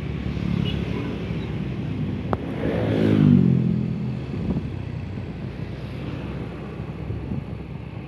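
Road traffic noise with a motor vehicle passing close by about three seconds in, its engine note swelling and then dropping in pitch as it goes past.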